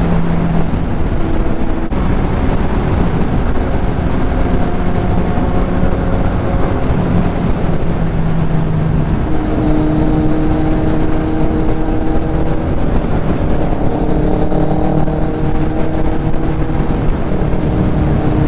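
Kawasaki Z800's inline-four engine running at highway speed, heard from on the bike with wind rushing over the microphone. About nine seconds in, the engine note steps up in pitch and holds there.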